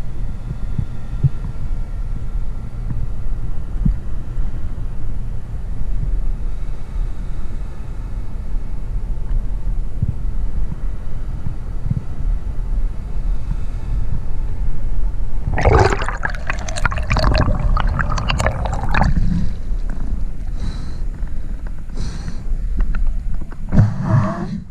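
Muffled rushing and rumbling of water heard through an underwater camera while freediving, with a louder stretch of splashing about sixteen seconds in that lasts around three seconds.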